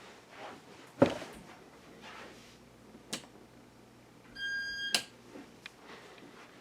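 A sharp knock about a second in, a click, then a short high electronic beep lasting about half a second that ends in a sharp click, over a faint steady hum.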